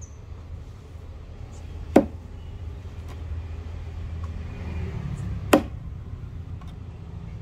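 Double bit axe with a True Temper head and rosewood handle chopping into the end grain of a wooden stump: two sharp chops about three and a half seconds apart, the blade biting and sticking in the wood. A steady low rumble sits underneath.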